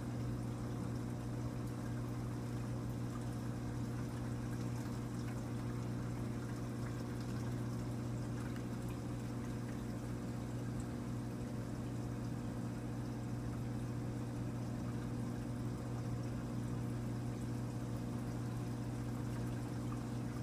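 Aquarium pump humming steadily, with water pouring and trickling as it circulates through the tank.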